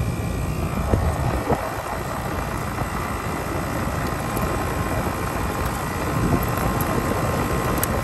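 Ruud outdoor air-conditioning condensing unit running, its condenser fan and compressor giving a steady fan rush and hum.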